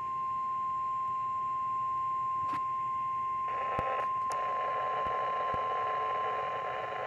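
NOAA Weather Radio 1050 Hz warning alarm tone, one steady unbroken tone that announces the alert message. About three and a half seconds in, radio static hiss comes in under the tone.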